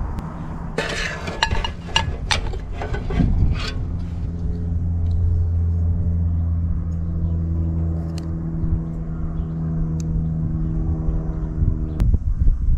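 Metal clinks as a frying pan is set on a Trangia alcohol stove and a metal pot gripper is handled, then a steady low hum for several seconds, ending in a sharp click.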